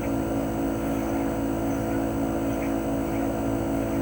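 CHOFU AE-2844PX mini-split outdoor unit running in cooling mode: its GMCC single-rotary inverter compressor and propeller fan give a steady hum of several held tones, with no change in speed.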